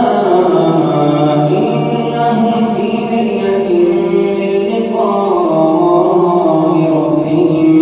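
A man reciting the Quran aloud in the melodic style of a Tarawih prayer imam, drawing out one long sung phrase with held notes, the pitch stepping up about five seconds in.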